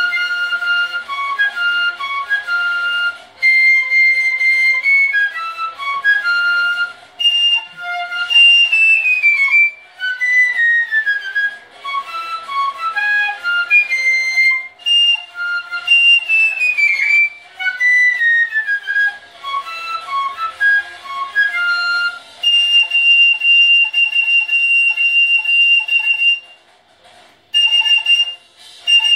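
Piccolo playing a melody, with quick falling runs of notes and a long high note held for about four seconds near the end, then a short break and a few more notes.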